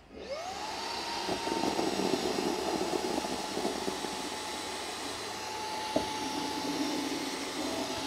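Xiaomi Mi Vacuum Cleaner Mini handheld vacuum switching on, its whine quickly rising to a steady pitch, and running on its normal (lower) power setting while it sucks up coffee granules. One sharp click about six seconds in.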